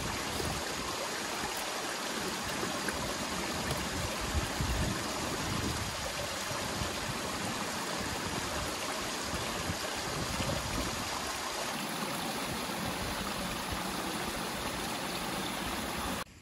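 Mountain stream running over rocks and spilling down a small cascade into a pool: a steady rush of water.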